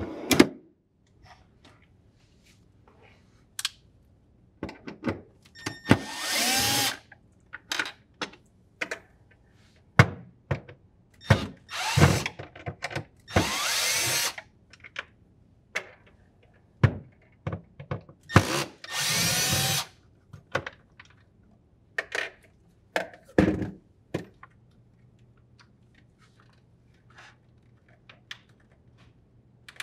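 Milwaukee cordless drill driver backing out the three Phillips screws that hold a refrigerator's freezer slide rail: three runs of about a second each, the motor's pitch shifting within each run, with scattered sharp clicks between them.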